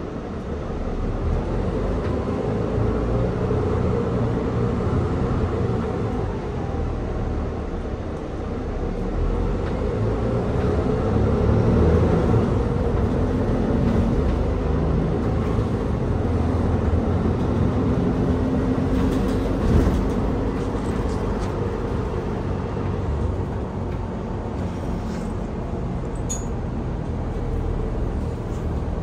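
Interior running noise of a Mercedes-Benz Citaro O530G articulated bus heard from on board: the drivetrain rises as the bus pulls away from a stop about a second in, then a continuous rumble of engine and road noise that swells and eases with speed. A few brief clicks or rattles come about two-thirds of the way through.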